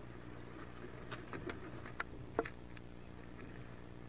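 Wood duck ducklings shifting about on the nest box floor: a cluster of small scratches and taps from about one to nearly three seconds in, the sharpest just past the middle, over a steady low hum.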